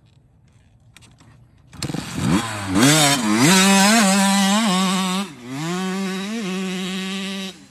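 Small dirt bike engine started in neutral and revved hard, its pitch dropping back and rising again several times. It cuts off suddenly near the end.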